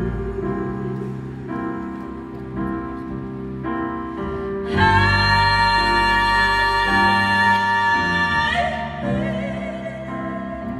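Live rock-band performance of slow piano-led chords with wordless female vocals. About five seconds in, a high sung note comes in loudly, is held for nearly four seconds, then slides down as the piano chords carry on.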